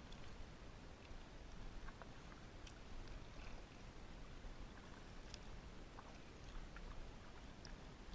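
Faint water sounds of a kayak being paddled on calm water: light dripping and splashing from the paddle, with scattered small ticks over a low steady rumble.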